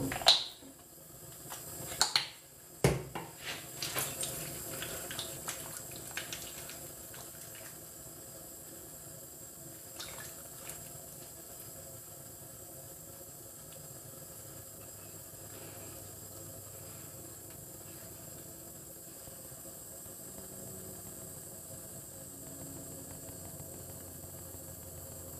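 Face washing at a sink: a few sharp knocks and clatters of things being handled in the first few seconds, then quiet water and hands rubbing the face over a steady background hiss.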